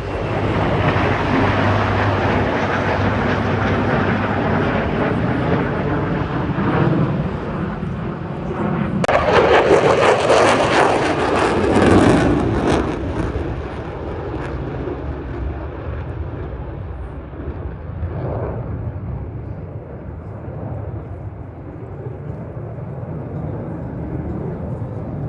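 A fixed-wing aircraft flies past, swelling to its loudest and harshest about nine to thirteen seconds in, then fading away as it recedes.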